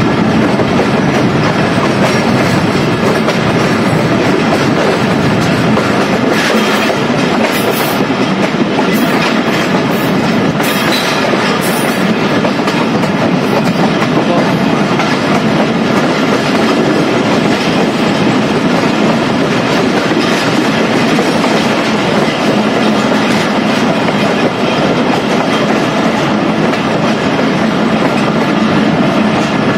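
Pakistan Railways Bolan Mail passenger train running through at speed, heard from beside a coach: a steady rush of wheels on the rails and passing air, with a run of sharp clicks from about six to twelve seconds in.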